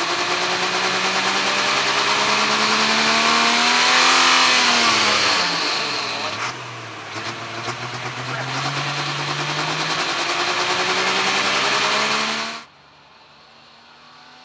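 Modified International 1486 pulling tractor's diesel engine running hard under load while dragging a weight sled. Its pitch climbs steadily, dips sharply about four to five seconds in, then climbs again. The sound cuts off abruptly near the end, leaving only a faint engine sound.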